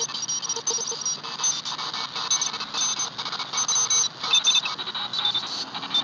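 Portable shortwave radio receiver tuned to 14028 kHz, in the Morse segment of the 20-metre amateur band, playing several overlapping Morse code (CW) signals. Steady tones at different pitches key on and off in quick irregular beeps over a constant hiss.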